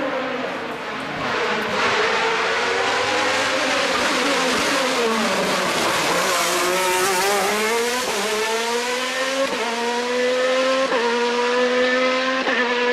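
Alfa Romeo 155 ITC touring car's V6 racing engine, its pitch falling as the car slows for a hairpin. It then accelerates hard away, rising in pitch through several quick upshifts about every second and a half.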